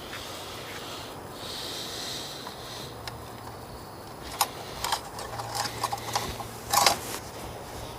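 Handling noises while checking the engine oil on the dipstick: a few sharp clicks and light knocks, then a short scraping rustle about seven seconds in, over a steady background hiss.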